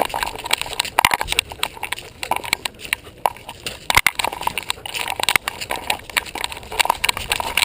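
Irregular knocks and rattles from a collar-mounted GoPro jostling against a running German Shepherd, mixed with the dog's own panting.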